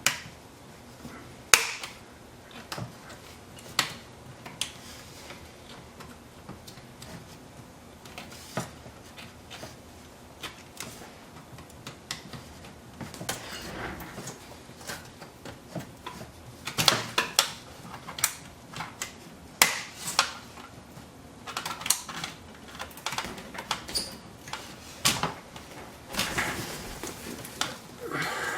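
Scattered small clicks and taps of handling a laptop's open memory bay while a memory stick is pressed and snapped into its slot, sparse at first and coming in quicker clusters in the second half.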